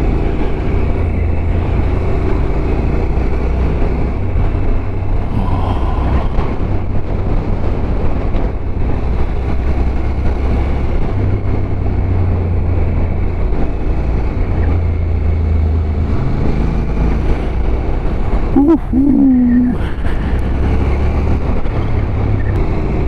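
Motorcycle engine running while riding, under steady wind rush on the mic, its low note stepping up and down several times with throttle and road speed. A short wavering tone cuts in a few seconds before the end.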